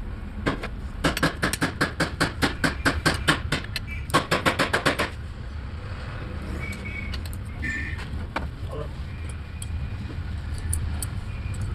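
Ratchet wrench clicking in two quick, even runs of about five clicks a second as bolts on the Renault Duster diesel's cylinder head are worked loose. A steady low hum runs underneath.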